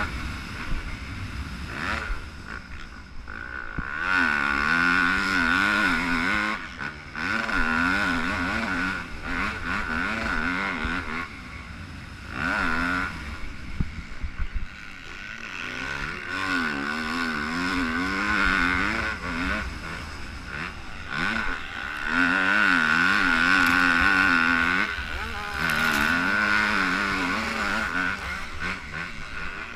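Yamaha YZ250F single-cylinder four-stroke motocross engine racing, heard close up from on the bike: the engine note swells and drops back several times as the throttle is opened and shut, its pitch wavering up and down.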